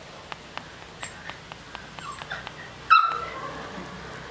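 Golden retriever puppy giving a few faint whines, then one sharp, high yip about three seconds in.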